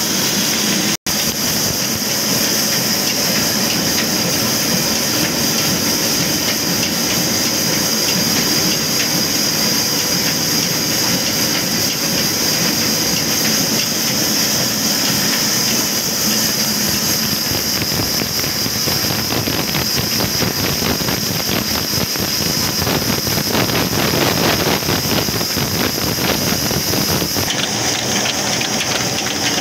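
Belt-driven band sawmill powered by an old diesel engine, running steadily while the blade cuts through a log: a constant machine drone under a steady high hiss. The high hiss eases near the end, and there is a momentary dropout about a second in.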